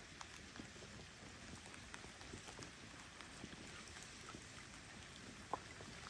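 Light rain pattering: a faint, steady hush scattered with soft ticks of drops, and one sharper tick near the end.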